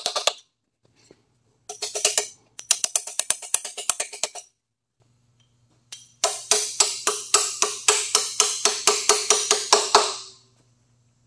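Ratchet wrench clicking in several quick runs, about six or seven clicks a second, as bolts are run down on an engine being reassembled; the longest run comes in the second half. A low steady hum sits underneath from about halfway through.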